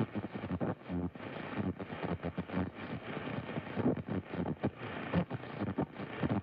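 AM radio tuned to 1020 kHz playing static with garbled, choppy splatter from adjacent-channel stations, the unintelligible babble that static fans call "monkey chatter". It comes in irregular bursts over a steady hiss.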